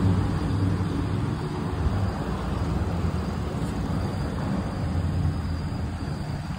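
Bicycle rolling over a concrete floor: a steady rush of tyre noise and wind on the microphone from riding.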